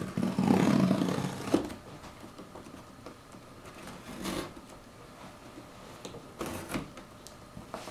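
Scissor blade drawn along the packing tape on a cardboard box's seam, slitting the tape: a loud scraping rip for about the first second and a half, ending in a sharp click, then a few shorter, quieter scrapes and clicks as the blades work at the tape.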